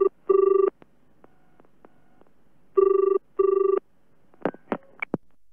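Telephone ringing with a double ring, two rings each made of two short bursts of the same tone. Near the end come several sharp clicks as the call is picked up by an answering machine.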